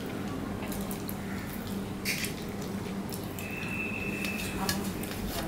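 Fingers mixing rice and curry on a stainless steel plate: soft squishing with scattered light clicks and scrapes against the metal, over a steady low hum. A thin high tone sounds for about a second a little past the middle.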